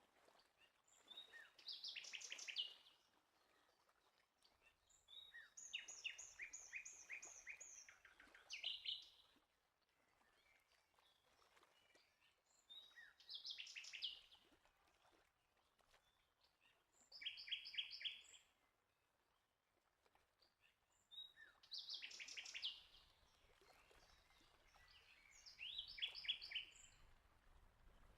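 A songbird singing faint, short phrases of rapid repeated high notes, about one phrase every four seconds.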